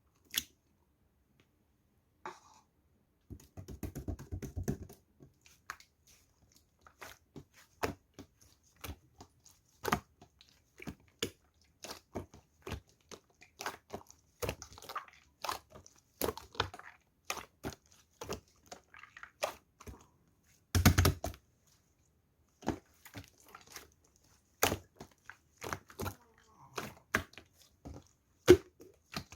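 Clear slime being worked by hand, making irregular sticky clicks and pops, with a short run of dense crackling about four seconds in.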